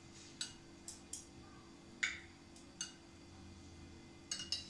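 Knife clicking against a glass plate while an omelette is cut into slices: a few separate sharp clicks, then a quick run of three near the end, over a faint steady hum.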